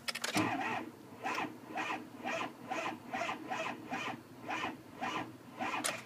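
Ford 6.0 Power Stroke diesel cranking slowly on the starter without starting, with a click as the starter engages and then a heavy pulse about three times a second. The cranking does not sound right: something is dragging the engine, which the technician traces to a seized AC compressor.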